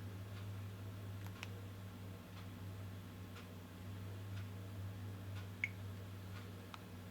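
Faint, irregular small clicks and ticks over a steady low electrical hum, with one sharper click about five and a half seconds in.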